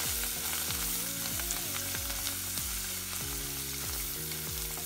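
Oil sizzling in a steel pan as a tempering of spices, curry leaves, chillies, garlic, ginger and fresh coriander fries, with a wooden spatula stirring it. Background music with a deep beat plays underneath.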